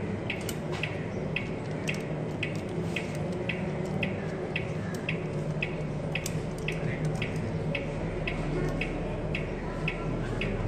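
A short high-pitched chirp repeating evenly about twice a second, over a steady low hum.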